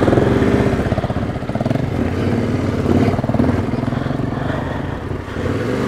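Trail motorcycle engine running at low, fairly steady revs with a rapid pulsing beat, dipping briefly near the end.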